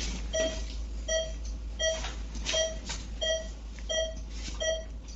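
Patient monitor's pulse-oximeter beep: a short mid-pitched tone repeating evenly about every 0.7 seconds, keeping time with a pulse of about 85 beats a minute. A faint rustle sounds once or twice between the beeps.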